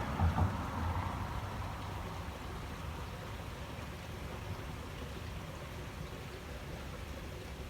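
Steady rushing of flowing river water, with a few low thumps in the first half second.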